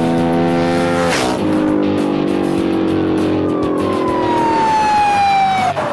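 Car engine revving, dropping in pitch at a gear change about a second in, then a high whine that slides down in pitch near the end. Background music plays underneath.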